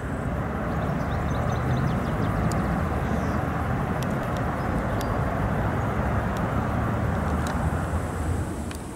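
Steady low rumble of outdoor background noise, with a few faint high clicks and chirps over it.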